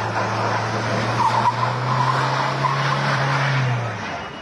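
Car engine running hard at steady revs, its pitch lifting a little partway through, with tyres skidding and squealing. The engine note fades away near the end.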